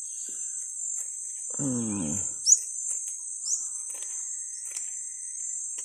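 Steady high-pitched drone of jungle insects, with two short falling bird chirps about a second apart near the middle and a brief low falling vocal sound just before them. Faint scattered clicks.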